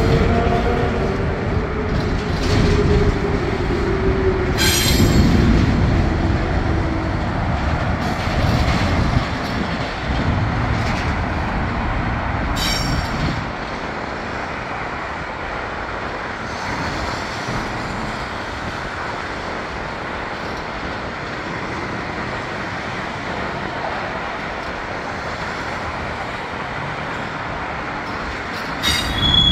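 Double-stack container cars of a Union Pacific freight train rolling past with a steady rumble of wheels on rail. A falling wheel squeal comes in the first few seconds, brief sharp screeches come twice in the first half, and a short high squeal comes at the very end. The rumble eases to a quieter, even run about halfway through.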